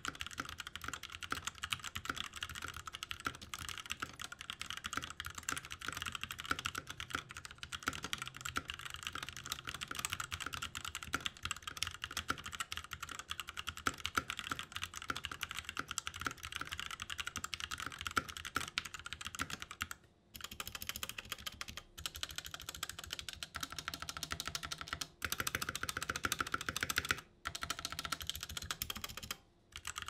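Typing on an Ajazz K870T mechanical keyboard with Huano Black linear switches: a fast, continuous run of key clacks with no switch click, broken by a few short pauses in the last ten seconds.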